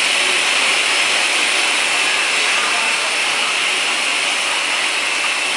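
Rotary glass-bottle filling machine running: a steady, loud hiss and whir of machinery, even throughout, with no separate knocks or clinks standing out.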